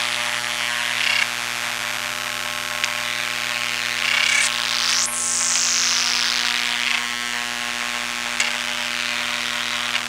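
Hard disk drive motors driven by circuit-bent motor controllers under control voltage, picked up electromagnetically by induction coils: a steady electrical hum under a high whine that drops in pitch over a few seconds and starts again from the top about five seconds in. Short crackly bursts and a couple of sharp clicks break in along the way.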